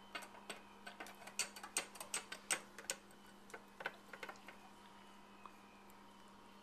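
Metal spoon clinking and scraping against a metal mixing bowl as a thick mixture is stirred: quick, irregular clicks for about four seconds, then trailing off.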